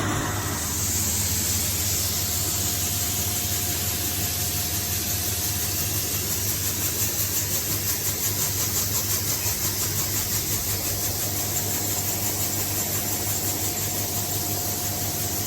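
Combine engine running steadily while it unloads soybeans, a continuous machine drone under a steady hiss.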